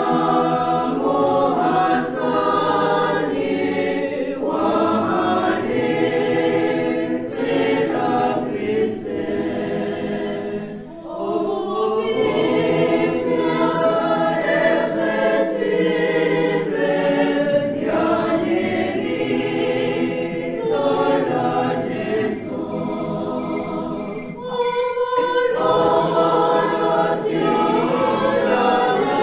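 A congregation singing a hymn together in a chapel, many voices in unison, with short breaks between phrases about eleven and twenty-four seconds in.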